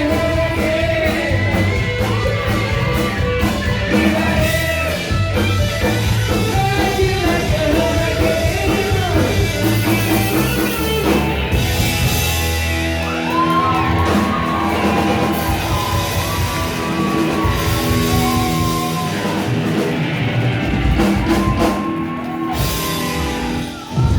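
Loud rock song with singing over a steady band backing.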